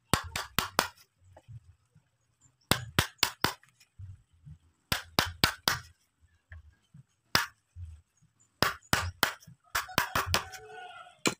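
A steel wood chisel driven with quick blows into a drill-bored mortise in a timber beam, chopping out the waste between the holes. The knocks come in bursts of three or four sharp strikes, with short pauses between the bursts.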